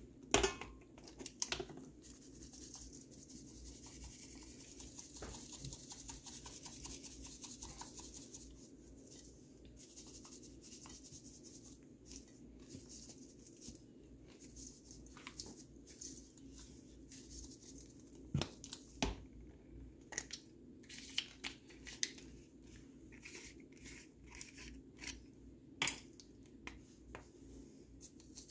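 Seasonings being shaken and sprinkled over raw chicken and chopped vegetables in a stainless steel bowl: a soft rustling hiss that fades after about nine seconds, then scattered clicks and knocks of plastic shaker caps and spice jars being handled.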